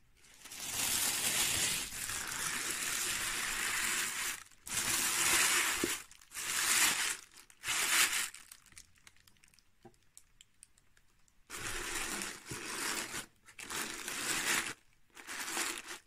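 Tissue paper crinkling and rustling as a hand presses and folds it into a cardboard box. The rustling comes in several bursts, with a quiet pause of a few seconds in the middle.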